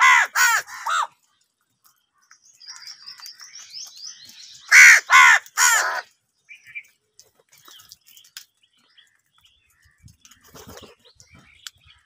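House crows cawing: a run of three harsh caws at the start and another run of three about five seconds in, with fainter, higher calls in between.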